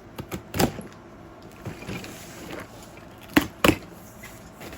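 A mail package being handled and opened by hand: scattered knocks and scrapes of the packaging, the loudest two close together about three and a half seconds in.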